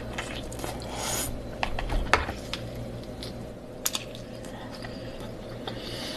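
Close-miked eating sounds of a person biting and sucking meat from seafood crab legs: wet mouth noises with several sharp clicks and cracks, the loudest about two seconds in.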